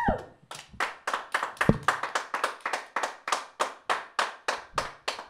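Hands clapping in applause, steady even claps about five a second.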